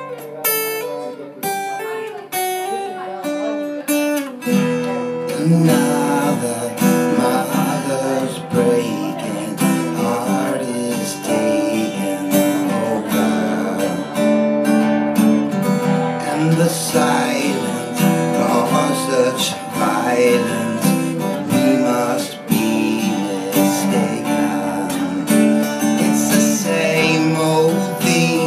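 Acoustic guitar played live: a few picked single notes at first, then steady strummed chords from about four seconds in.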